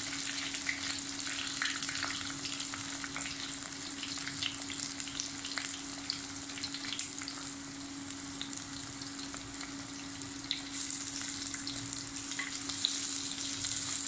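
Chopped onions frying in hot sesame oil in a clay pot: a steady sizzle full of small crackles and pops, with a wooden spatula stirring them near the end.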